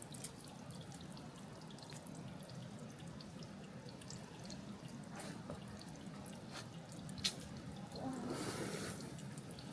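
Meltwater dripping from ice: irregular single drips, one louder than the rest about seven seconds in. A brief patch of louder noise comes near the end.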